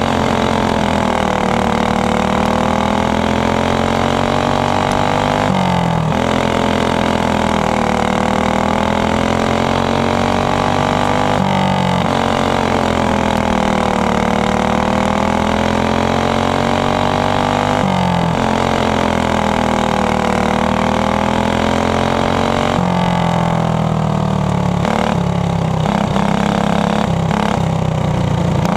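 Racing go-kart's engine heard from onboard at race speed, its pitch dropping as the driver lifts for each turn and climbing again down each straight, about every six seconds, lap after lap.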